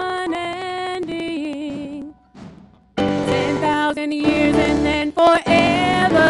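A group of women singing a worship song. The music drops out briefly about two seconds in, then comes back fuller and louder.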